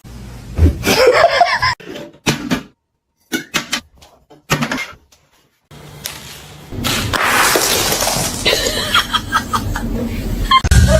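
People laughing, with short knocks and clattering sounds between abrupt cuts and brief gaps.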